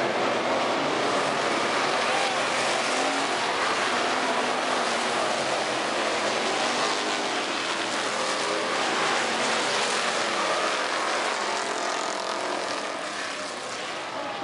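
A pack of hobby stock race cars runs at speed on a dirt oval, a steady blend of many engines, their pitch rising and falling as the cars pass. The engine noise eases a little near the end.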